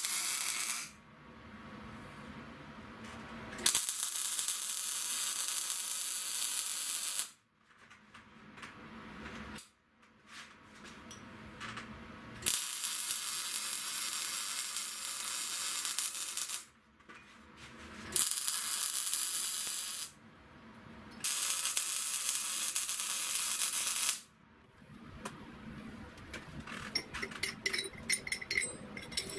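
MIG welding arc crackling and hissing in five separate runs of one to four seconds, with short pauses between. Near the end come quick, light metallic ticks and taps.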